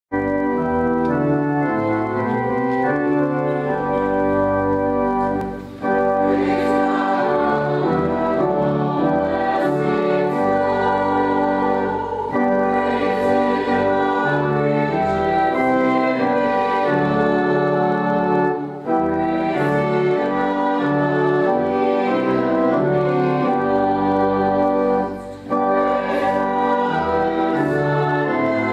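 Church organ playing a slow prelude in sustained chords, with short breaks between phrases about six, nineteen and twenty-five seconds in.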